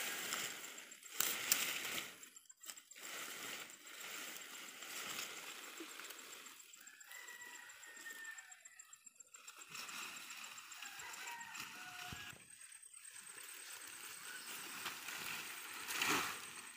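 Cut okra and maize plants, stalks and leaves, rustling and crackling as a bundle is gathered up, carried and thrown onto a pile, louder about a second in and again near the end.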